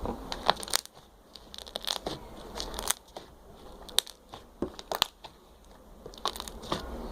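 Slime being squeezed and worked in the hands, giving irregular sharp pops and clicks as trapped air bubbles burst.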